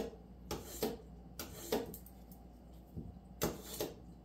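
A fillet knife being sharpened: a series of short scraping strokes of the blade against the sharpener, irregularly spaced about half a second to a second apart.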